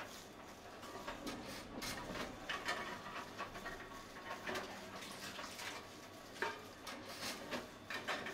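Aluminium drink cans being fed one at a time into a Tomra reverse vending machine, giving a string of irregular light clinks and knocks as each can is pushed into the intake and taken in by the machine.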